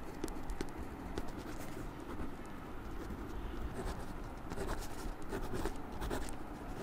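Pen scratching on paper as a letter is handwritten, in short irregular strokes.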